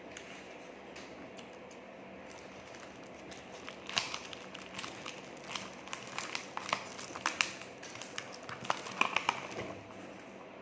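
Plastic being handled: a run of irregular crinkles and sharp clicks from about four seconds in until shortly before the end, over a faint steady background.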